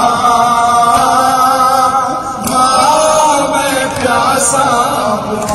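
A man chanting a noha, a Shia mourning lament, in long melodic phrases whose pitch slides up and down, with a brief dip about two seconds in.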